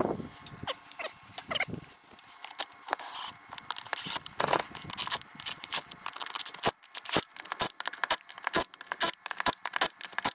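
Metal clinks and scrapes of lug nuts being fitted and tightened onto a tractor wheel hub. From about six seconds in there is a long run of sharp clicks, about two or three a second.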